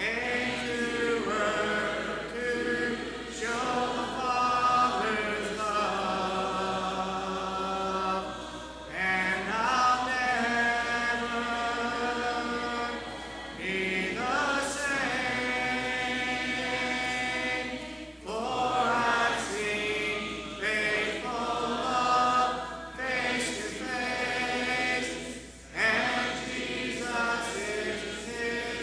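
Congregation singing a hymn a cappella, with no instruments, in phrases with short breaths between lines.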